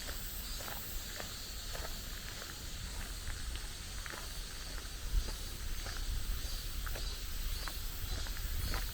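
Footsteps on a damp forest path at a steady walking pace, each step a short soft crunch, over a steady high hiss and a low rumble.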